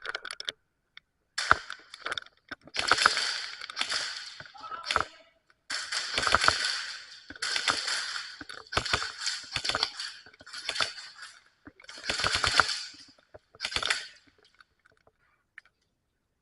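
Airsoft guns firing in rapid bursts of fast, clicking shots, about eight bursts of up to two seconds each with short pauses between them.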